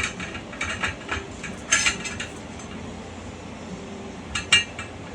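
Metal clanks and rattles of hand tools and equipment being handled: a few irregular sharp knocks, loudest about two seconds in and again near the end, over a low steady hum.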